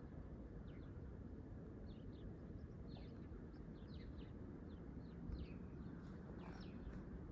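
Small birds chirping, short high calls several times a second, faint over a steady low rumble of outdoor background noise.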